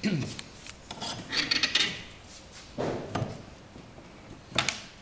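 Outrigger crossbars of a Hobie Adventure Island kayak being handled: a few short scrapes and rubs of the tubing against the hull fittings, with the sharpest knock near the end.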